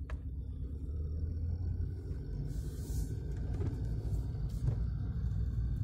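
Mitsubishi Pajero SUV driving slowly on a snow-covered road, heard from inside the cabin as a steady low rumble of engine and tyres. There is a short click at the very start and a brief hiss about two and a half seconds in.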